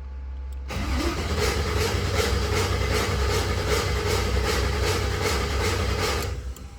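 Chevy engine being cranked by its starter for about five and a half seconds without catching, a rhythmic pulsing churn that starts with a brief rising whine and cuts off suddenly. This is a crank-no-start, tied to a camshaft position sensor fault.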